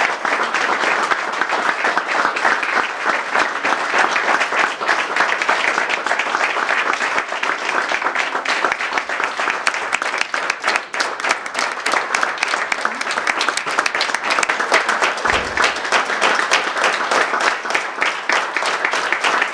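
Audience applauding steadily, the dense clatter of many hands clapping at once.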